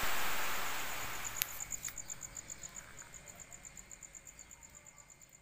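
Rain hiss fading away, leaving an insect chirping in high, even pulses about five a second, with a single sharp click about one and a half seconds in. The whole sound fades out gradually.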